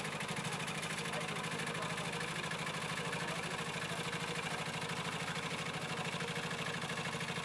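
Small engine of a ride-on miniature logging truck running with a steady, even putter as the truck moves off slowly.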